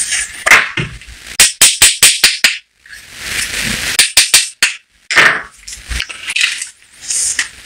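A main bearing shell and its engine main bearing cap being handled and tapped: a quick run of about six sharp light taps, then rustling, then a few more taps about four seconds in.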